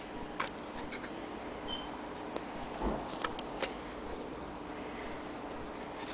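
A few scattered light clicks and taps, with a soft thump about three seconds in, over a steady low hum.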